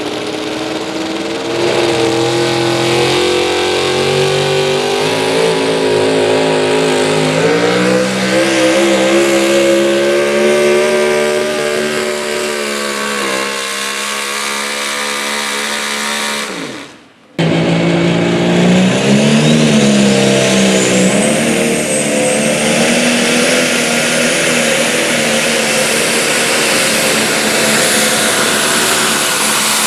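A supercharged pickup pulling truck runs at full throttle as it drags a weight-transfer sled, its engine pitch climbing and holding, then falling away about sixteen seconds in. After a short break, a John Deere-bodied diesel pulling tractor runs flat out under load, with a high whistle rising around twenty seconds in.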